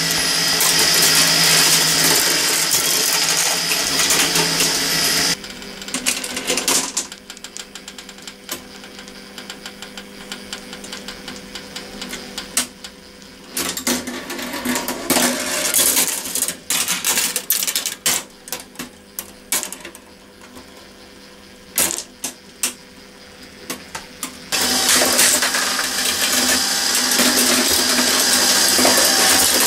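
Meccano marble machine running: its drive motor and gearing run loudly for about five seconds, then drop back to a faint hum while glass marbles click and clatter against the metal strips and plates, and the loud motor noise returns about five seconds before the end.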